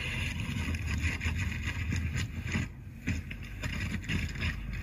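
Low, uneven rushing noise with small knocks from a ride down an enclosed tube water slide, played back through a Nebula Capsule Max pocket projector's built-in speaker.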